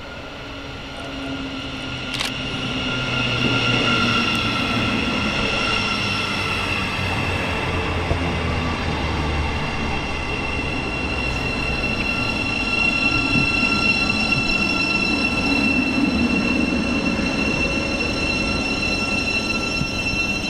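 Electric multiple-unit train coming into the station with its brakes squealing in several steady high tones over the rumble of the wheels. It grows louder over the first few seconds, then holds.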